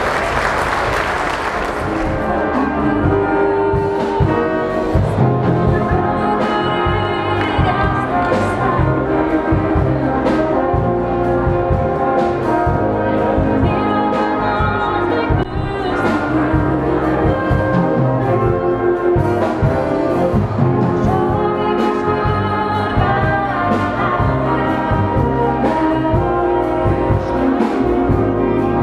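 Brass and wind band playing live, with trumpets, trombones and clarinets over a steady beat, and a woman singing over it into a microphone.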